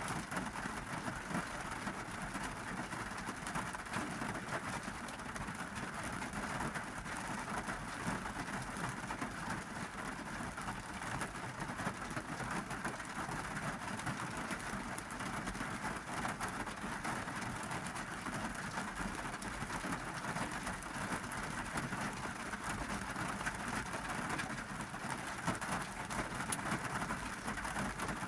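Rainy-season rain falling steadily on a car's roof and windows, heard from inside the cabin as a constant hiss full of fine pattering drops.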